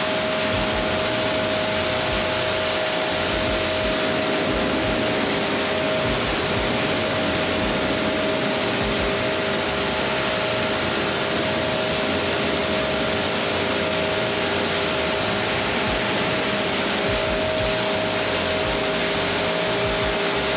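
A machine running steadily: a constant two-note whine over an even rushing noise.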